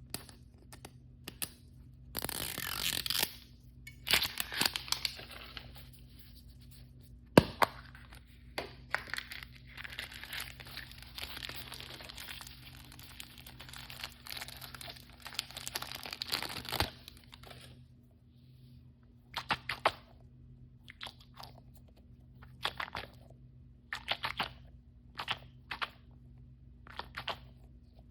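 Blind-bag toy packaging torn open and crinkled by hand: a loud tear about two seconds in, a sharp click a few seconds later, a long stretch of crinkling through the middle, then short scattered rustles near the end.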